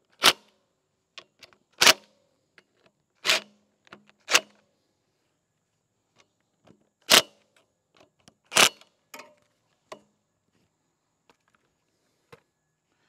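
Cordless drill with a socket running in short bursts, about six in the first nine seconds, driving bolts into a small Kohler mower engine, with a few faint tool clicks after.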